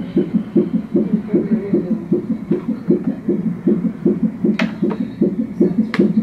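Fetal heart monitor's Doppler speaker playing the baby's heartbeat: a fast, regular pulsing beat at about two to three beats a second. Two sharp clicks are heard, about four and a half seconds in and near the end.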